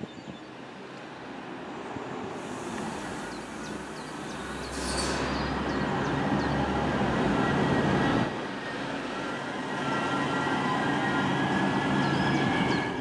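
A DB Class 612 diesel multiple unit running into the station toward the listener, its diesel engines humming and the train noise growing steadily louder as it comes closer. There is a brief high hiss about five seconds in, and faint high squealing tones in the later seconds.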